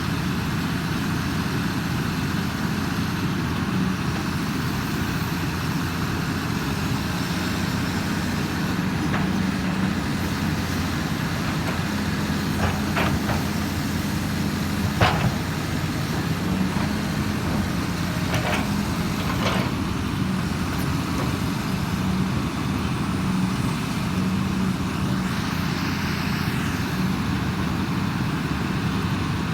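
Hydraulic excavator's diesel engine running steadily as it digs, with a few sharp knocks about halfway through.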